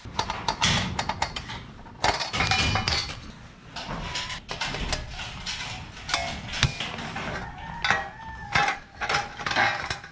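Irregular clinks and clanks of light metal ceiling-frame pieces being cut and handled, some strikes ringing briefly.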